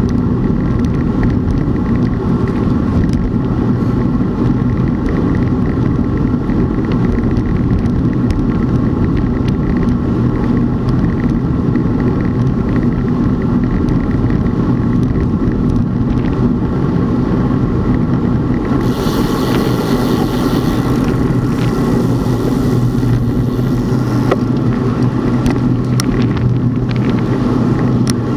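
Steady travelling noise of a moving vehicle at constant speed, with an even hum. A rush of high hiss comes in about two-thirds of the way through.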